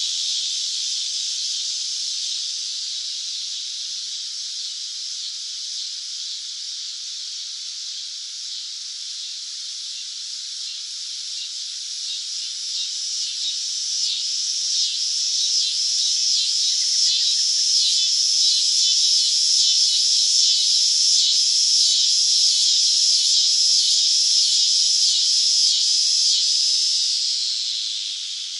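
Cicadas buzzing in a high-pitched drone. The buzz swells about halfway through into a louder, rapidly pulsing call, then fades near the end.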